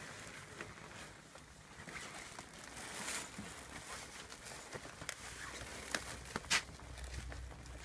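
Rough collie puppies, about five weeks old, moving about with soft scuffling and pattering and scattered light clicks. The sharpest click comes about six and a half seconds in.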